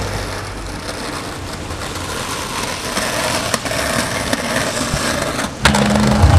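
Skateboard sliding and grinding along a concrete ledge: a rough, continuous scraping of the board and trucks on stone. A single sharp crack of the board comes near the end.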